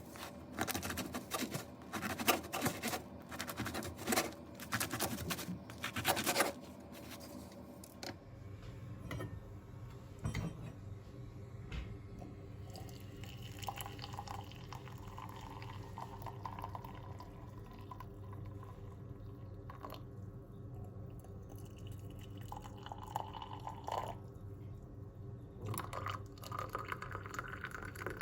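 Kitchen handling sounds: brisk scrubbing and scraping for about eight seconds, then a quieter steady hum with faint trickling of liquid and a rising pitch near the end, as of a vessel filling.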